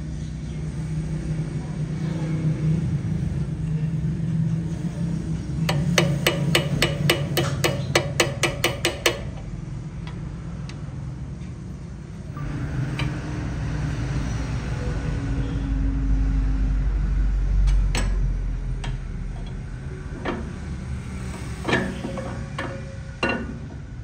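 Metalworking on a steel camshaft in a vise: a quick, even run of about a dozen metal taps at roughly four a second, then a few scattered single knocks, over a steady low machine hum.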